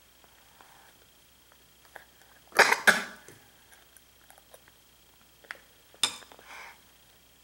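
A person coughing: a loud double cough a little over two and a half seconds in, and a shorter single cough about six seconds in.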